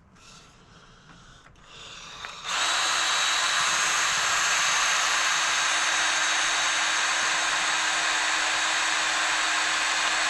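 Electric drill starts about two and a half seconds in and runs steadily at constant speed, drilling out the hinge pin screw of a Brompton folding bike.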